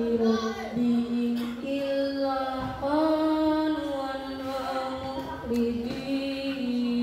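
A boy reciting the Qur'an in the melodic tilawah style into a microphone, one voice holding long sung notes that step up and down in pitch.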